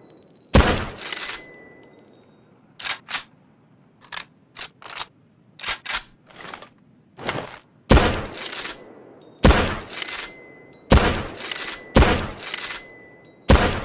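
Mosin-Nagant M91/30 bolt-action rifle (7.62×54mmR): a single shot, then a stretch of smaller metallic clicks of the bolt being worked, then five more shots in quick succession, each ringing out briefly.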